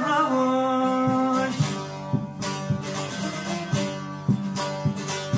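A male voice holds the last note of a Kurdish folk song refrain for about a second and a half. A plucked string instrument then goes on alone with sharp, rhythmic strokes.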